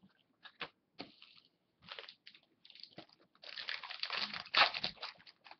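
Foil wrapper of a hockey card pack crinkling and crumpling in the hands. Scattered light rustles come first, then a dense crackle from about three and a half seconds in that is loudest near the end.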